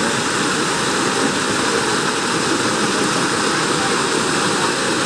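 Steady rush of flowing or falling water, even and unbroken.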